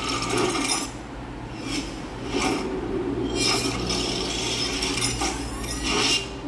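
Video intro sound effects, a series of short noisy bursts about once a second over a steady low hum, played through the HP Spectre x360 laptop's built-in Bang & Olufsen speakers.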